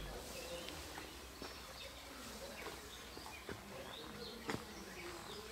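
Faint outdoor ambience with scattered short high chirps and a few soft clicks, the loudest click about four and a half seconds in.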